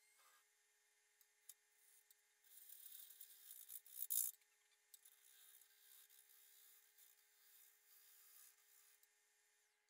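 Oneway Termite Tool's ring cutter slicing the end grain of a spinning cherry bowl blank on a wood lathe: a faint scraping hiss that starts about two and a half seconds in, is loudest around four seconds, and carries on until near the end.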